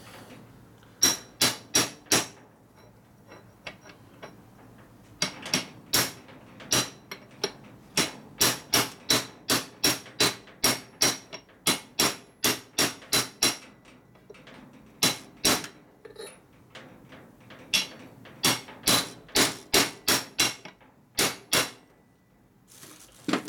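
Hammer striking a steel drive sleeve that sits on a nut, driving a bearing into a Borg Warner T5 five-speed transmission case. Sharp metallic strikes with a slight ring come about two to three a second, in runs broken by short pauses.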